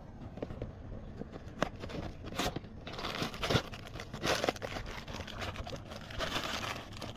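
Plastic and paper packaging crinkling and rustling as it is handled, with scattered small clicks and knocks. Louder bursts of rustling come about three seconds in and again near the end.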